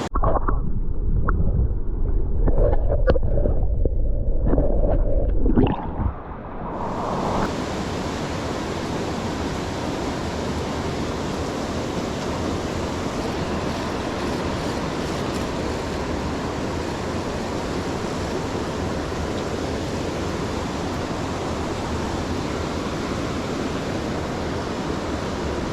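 Flowing creek water, a steady even rush. For about the first six seconds the sound is muffled, with a loud low rumble and little treble; then it opens out into a full, constant rush of water.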